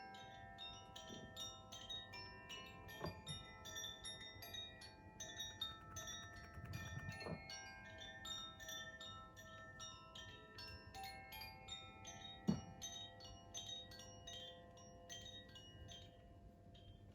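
Koshi wind chime being swayed, its clapper striking the tuned metal rods in a continuous shimmer of overlapping ringing tones. A few soft knocks cut in, the sharpest and loudest a thump about two-thirds of the way through.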